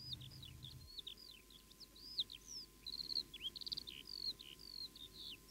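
Faint birdsong: a steady run of short, high chirps and whistles from several birds, with a couple of quick trills.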